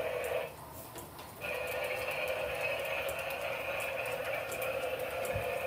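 Battery-powered toy train running on plastic track: a steady whine that breaks off for about a second shortly after the start and then resumes, with faint ticking throughout.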